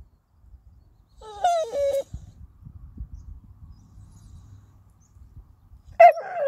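Staffordshire bull terrier making two drawn-out whining 'talking' calls, wavering and falling in pitch. The first comes about a second in and lasts under a second; the second, louder one starts near the end.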